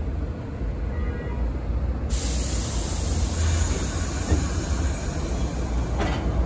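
New York City subway 6 train starting to pull out of an elevated station, with a steady low rumble from the cars. A hiss starts abruptly about two seconds in, and there is a sharp clank near the end.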